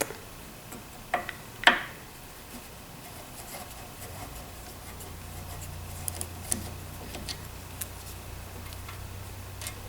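Scattered clicks and light clinks of hand tools on the metal parts of an old lathe headstock as the bearing cap is worked loose. The loudest click comes just under two seconds in, and a faint low hum sets in about four seconds in.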